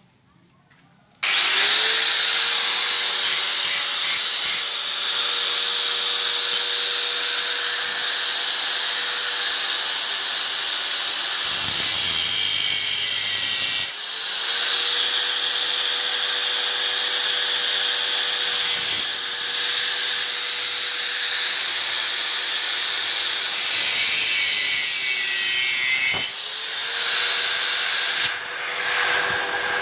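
Angle grinder with a cutting disc starting up about a second in and running steadily with a high whine while it cuts a metal pipe. Its pitch drops briefly a few times.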